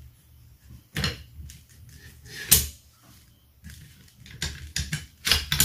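Metal parts of a Toros Copolla TR12 12-gauge shotgun's action clicking and knocking as they are handled during disassembly, with a sharp click about two and a half seconds in and a quick run of knocks near the end.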